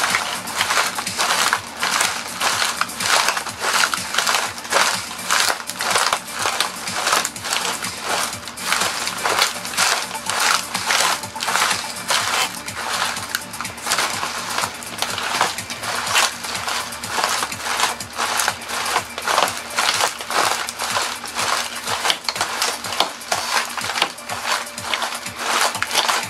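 A toy train being crushed inside a plastic trash bag under high-heeled shoes: a continuous run of sharp cracks, crunches and plastic-bag crinkling, several a second, as the heels tread on it again and again.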